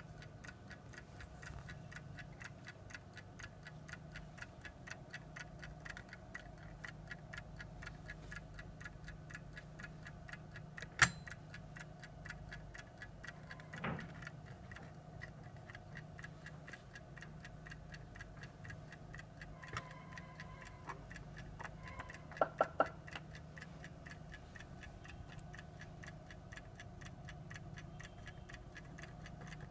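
Frog clock ticking steadily and rapidly. A sharp click, the loudest sound, comes about a third of the way in, then a softer knock, a short steady tone and three quick clicks in a row.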